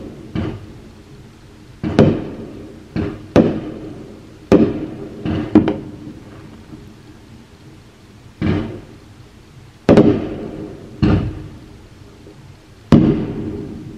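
Consumer aerial fireworks bursting almost right above the house: about ten sharp bangs at irregular intervals, each trailing off over a second or so.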